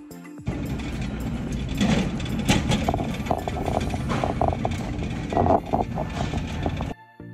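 Loud rumbling and rattling noise of movement close to the microphone, starting suddenly about half a second in and cutting off suddenly near the end, with a few short squeaky tones in the middle.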